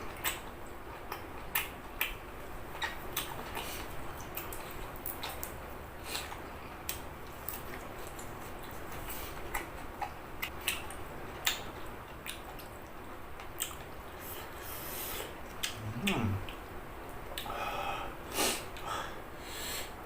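Scattered light clicks and taps of food preparation, squid being handled and cut, over a faint steady background noise, with a cluster of louder knocks near the end.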